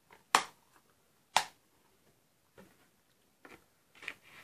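Plastic DVD case being handled: two sharp snapping clicks about a second apart, then softer clicks and rustling of the case.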